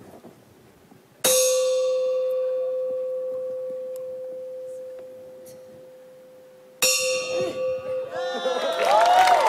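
A coin dropped into a metal bucket, twice about five and a half seconds apart: each a single clang that rings on with a long fading tone. Near the end the audience starts cheering and shouting.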